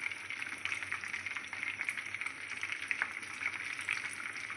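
Hot oil sizzling and crackling steadily as potato cheese balls deep-fry in a pan.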